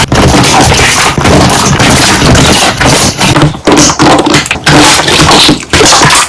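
Slime being squeezed and folded by hand, trapped air bubbles popping in a fast, loud run of crackling pops and squelches, with a few short pauses.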